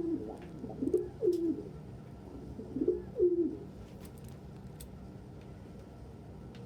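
Domestic pigeons cooing: several low coos in the first three and a half seconds, then only a few faint clicks.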